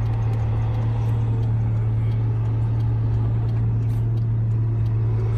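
Car cabin noise while driving: a steady low engine hum over road noise, unchanged throughout.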